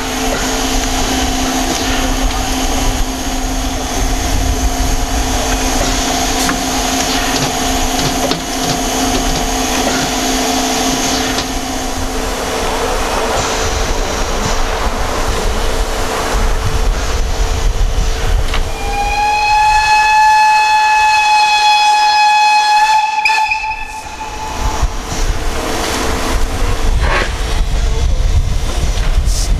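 Steam locomotive standing with steam hissing, then sounding its steam whistle in one long steady note of about five seconds, a little past the middle.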